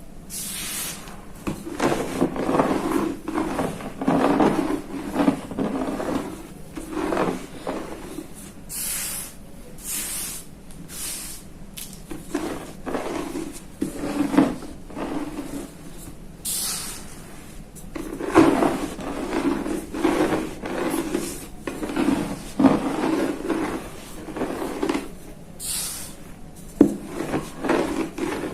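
Rolling pin rolling back and forth over gym chalk blocks, crushing them: uneven crunching and grinding in waves, with a few short crisp cracks.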